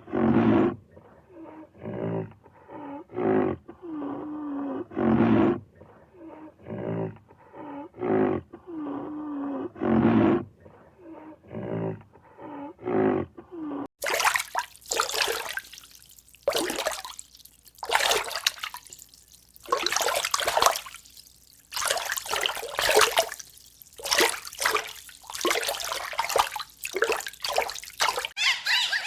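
Animal calls: a run of repeated grunting, roaring calls, about one or two a second. Then, after a sudden change, a different stretch of harsh, noisy bursts.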